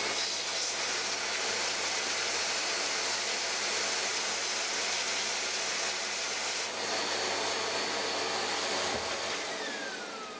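Miele vacuum cleaner motor and fan running with a steady, loud rushing noise, switched off about nine seconds in and spinning down with a falling whine.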